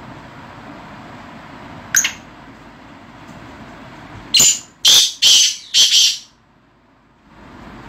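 Black francolin calling: a single short note, then about two seconds later a loud call of one short note followed by three longer notes in quick succession.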